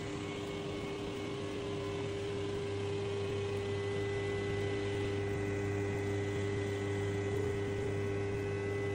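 CWT Industries crankshaft balancing machine spinning a crankshaft on its belt drive: a steady, unchanging hum with a faint high whine. It is a test spin that measures how much unbalance is left after weight has been drilled out of the counterweights.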